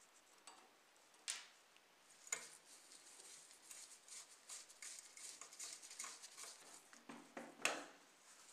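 Small screwdriver and fingers working on a rusty model car as it is taken apart: faint scraping and small ticks of metal and plastic parts. Sharp clicks come about one and two seconds in, and the loudest comes near the end as the body shell is pulled apart.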